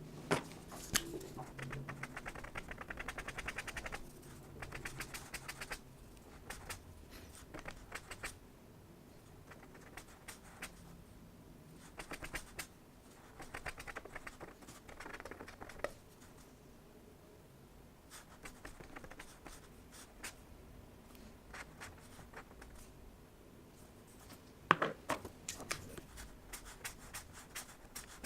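Pen scratching on paper in short bursts of drawing strokes, with pauses between them and a few sharp taps, the loudest near the end.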